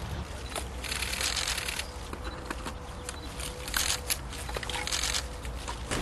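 Press camera shutters firing in rapid bursts, about one second in, near four seconds and again around five seconds, over a low outdoor rumble.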